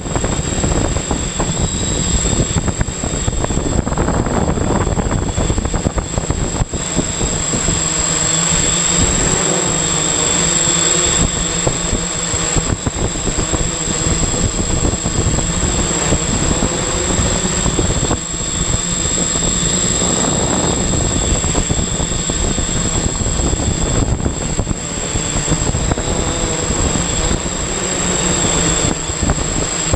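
Octocopter's electric motors and propellers whirring steadily, heard from the camera mounted on its frame, with a thin high whine over it.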